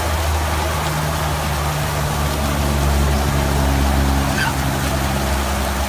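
Steady rush of water at a water-park splash pad, with a low, even hum underneath.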